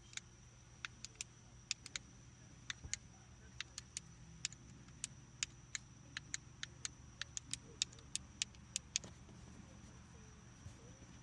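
A long run of small, sharp plastic clicks, about two or three a second at an uneven pace, over a steady low hum: a Nissan Sentra's remote key fob buttons being pressed again and again while the remote is paired to the car.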